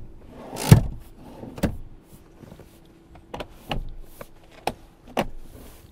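Manual front passenger seat of a Toyota Harrier being adjusted by hand: a series of clicks and clunks, one with a short sliding rush just before it about a second in, as the seat moves on its rails and latches into place.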